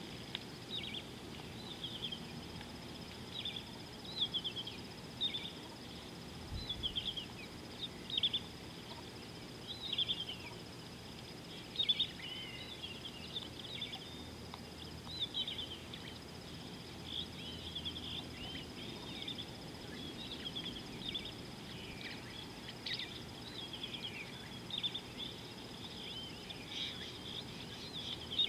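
Wild birds chirping: many short, quick high calls, repeating about every second, over a thin steady high tone and a low background hiss.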